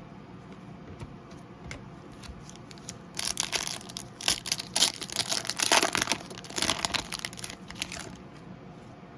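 Crinkly plastic trading-card packaging being torn open and crumpled by hand: a few small clicks, then about five seconds of dense crackling and tearing.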